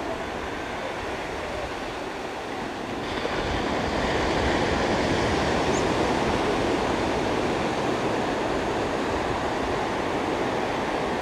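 Ocean surf washing steadily, a rushing noise that grows louder about three to four seconds in.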